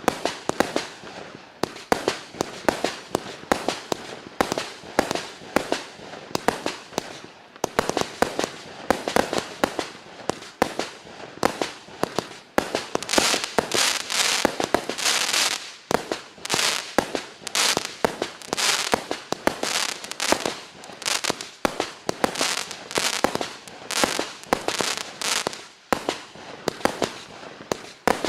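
A 192-shot fireworks cake firing a rapid barrage of launches and aerial bangs, several reports a second without a break. About 13 to 16 seconds in, the bangs are joined by a dense crackling.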